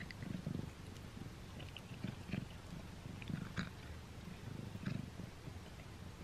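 Tabby kitten chewing a string cat treat, with small sharp clicks of its teeth on the treat and low rumbling swells about every second and a half.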